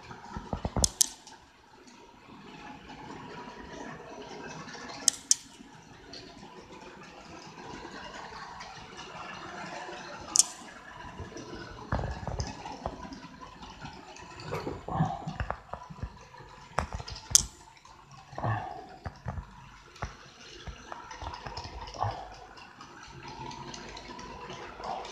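HO-scale model trains running on a layout: a steady running noise with a few sharp clicks scattered through.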